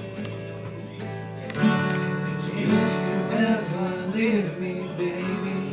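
Acoustic guitar being strummed, playing chords for a song intro, with a louder strum about a second and a half in.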